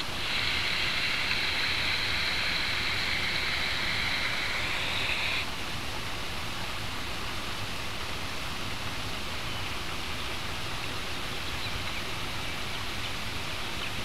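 Woodland creek water running steadily, spilling over a small waterfall. For the first five seconds a steady high buzz sits over it, then cuts off abruptly.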